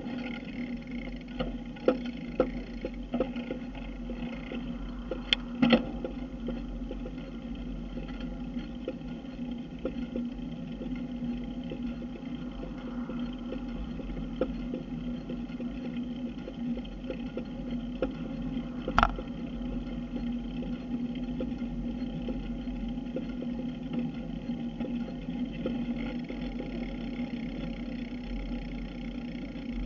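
Steady road and wind noise from a moving bicycle, heard through a camera mounted on the bike, with a constant low hum and scattered sharp clicks and knocks, the loudest about five seconds in and again near the middle.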